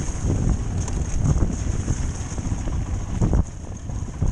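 Wind rushing over the microphone of a rider on a motorcycle moving along a rutted, slushy snow track, with the bike's engine running low underneath and a sharp knock about three seconds in.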